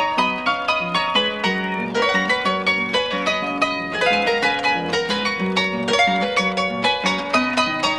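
Harp music: quick runs of plucked notes over a repeating bass line.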